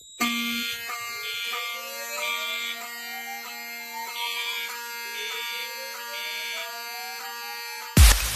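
Several fire alarm notification appliances sounding together: a steady buzzing tone, a high horn tone pulsing three times, pausing, then three times again in the temporal-3 evacuation pattern, and a slow rising whoop sweep that repeats. The alarms cut off near the end as electronic music with a heavy beat starts.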